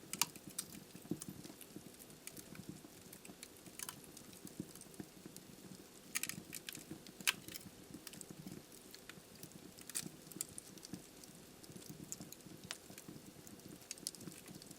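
Burning firewood crackling in a fireplace: irregular snaps and pops over a steady low hush from the fire, with a few louder pops scattered through.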